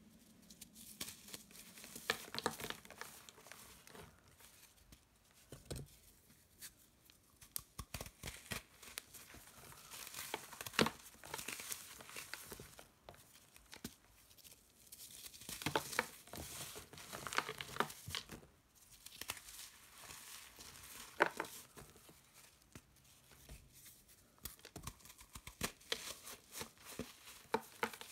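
Hands crushing and crumbling dry reformed chalk blocks into pieces and powder: irregular crackling and crunching with sharper snaps now and then.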